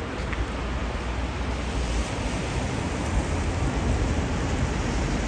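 Wind buffeting the microphone with a heavy low rumble over a steady hiss of street and traffic noise, slowly growing louder.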